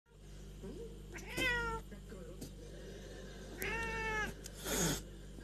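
Domestic cat meowing twice while its belly is rubbed: first a short meow, then a longer, even one, followed by a brief breathy noise near the end.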